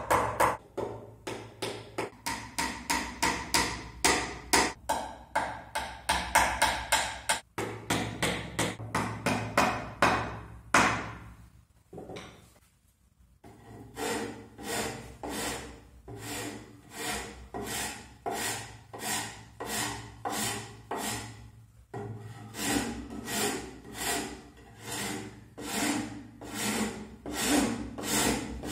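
A white-headed mallet tapping wooden dowels into the holes of a wooden clock panel, quick repeated knocks of about three a second. After a short pause come steady back-and-forth rubbing strokes, about two a second, as the edge of the panel is worked by hand.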